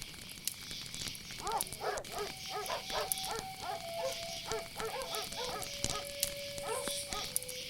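Dogs barking repeatedly, several barks a second, starting about a second and a half in, with a long held tone under the barks that steps lower in pitch. Underneath runs a steady high chirring of crickets with scattered small clicks like a crackling fire.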